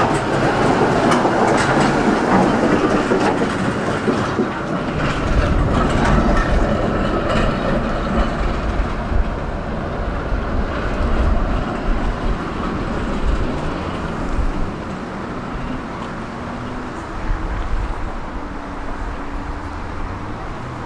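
A tram running on street tracks close by, its wheels clattering on the rails with a low rumble. Loudest in the first half, then fading to a steadier, quieter running noise.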